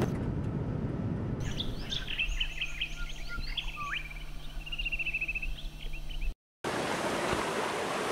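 A low rumble for about the first second, then several birds chirping and calling over a faint steady hum. After a short silent cut about six and a half seconds in, water rushing and splashing in a shallow stream over rocks.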